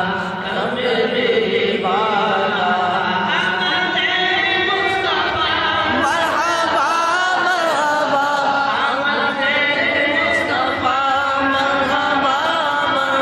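Voices chanting an Urdu naat: a devotional melody sung with wavering, drawn-out notes, several voices overlapping.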